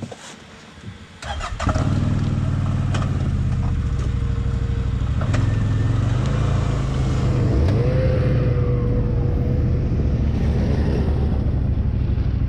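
Motor-vehicle engines close by: after a few light clicks, a loud, steady engine note comes in abruptly about two seconds in and keeps running, with a slight swell in the middle as two snowmobiles pass close by a stopped side-by-side.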